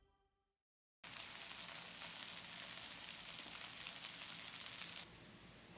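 Flour-dredged fish fillet pieces sizzling as they fry in hot oil in a skillet: a steady crackling sizzle that starts about a second in and drops quieter near the end.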